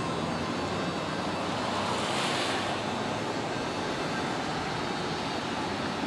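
Steady outdoor background noise, an even hiss, with a brief hissing swell about two seconds in.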